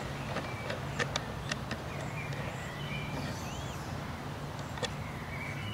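Outdoor garden ambience: a steady low hum with birds chirping, and a few sharp light clicks from a hand screwdriver's hex bit turning a screw in a plastic brush mount.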